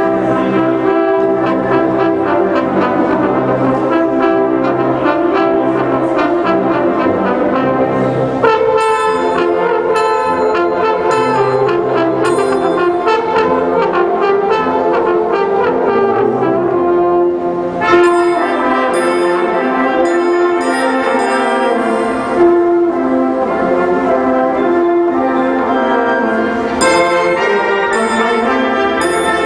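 Brass band playing a brisk piece, with a regular high percussion beat that comes and goes.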